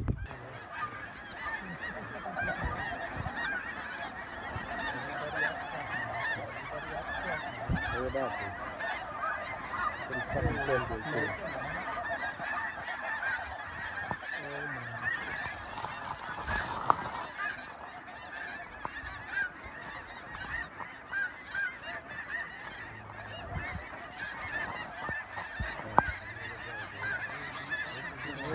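A large flock of snow geese calling, a dense continuous chorus of overlapping short, high honks. Two brief sharp knocks stand out partway through and near the end.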